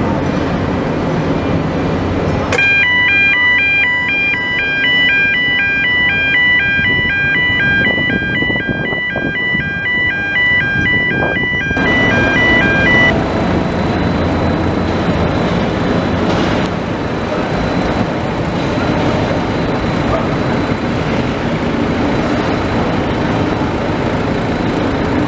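Two-tone warning alarm of a dockside container gantry crane, alternating high and low beeps about twice a second for roughly ten seconds before stopping abruptly, over the steady running of heavy port machinery.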